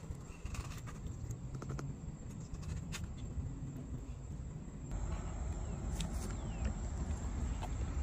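Soft scraping and sharp clicks of a piece of coconut husk scooping the soft white meat out of a young green coconut, over a low outdoor rumble that gets louder about five seconds in.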